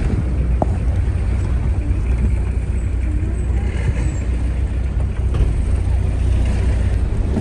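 Steady low rumble of a car driving along a road, heard from inside the vehicle.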